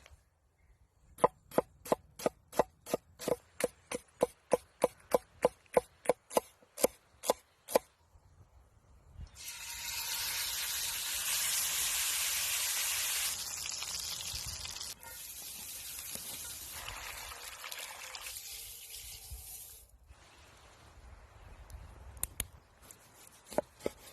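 Knife chopping on a cutting board, about three even strokes a second for some six seconds. Then comes a steady hiss of liquid for about ten seconds, dropping in level a couple of times. A few light clinks come near the end.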